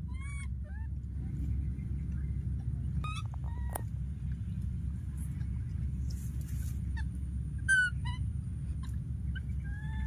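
Short, high-pitched chirping animal calls, a few at a time and scattered, over a steady low rumble; the loudest call comes near the end.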